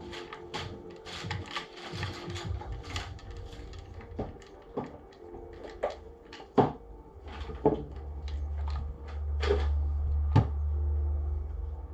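Irregular clicks and knocks of an airsoft rifle's plastic and metal parts being handled and worked apart, with a low rumble through the later part.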